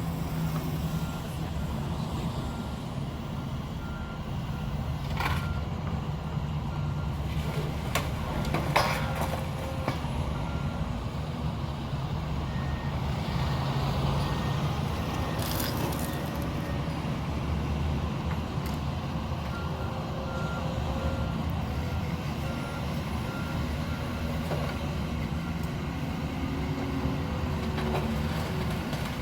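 Heavy diesel demolition machinery running with a steady low rumble while a reversing beeper sounds in spells. A few sharp cracks as the house is broken up, the loudest about a quarter of the way in.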